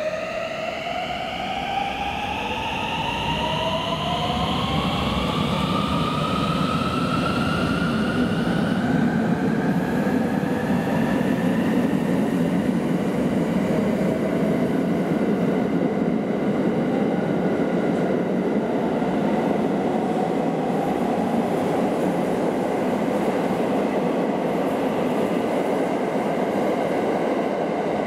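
JR West 683 series nine-car electric express train pulling away and accelerating past, its traction motors whining in several tones that rise in pitch over the first dozen seconds. After that comes a steady rumble of wheels and running gear as the cars go by.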